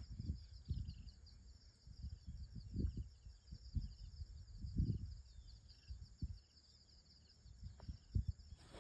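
Wind buffeting the microphone in uneven low gusts, over a steady high insect chirring and a few faint bird chirps.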